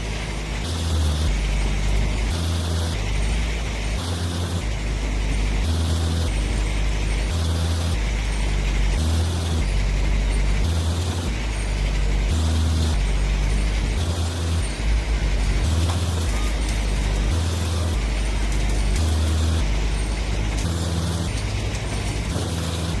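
Heavy diesel earth-moving machinery running under load: a loud low rumble that pulses in an even rhythm, about once every second and a bit.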